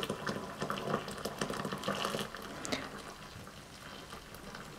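Hot water pouring from a jug into a rice cooker's metal inner pot around a sealed plastic bag of beef, splashing and trickling, the stream growing quieter toward the end.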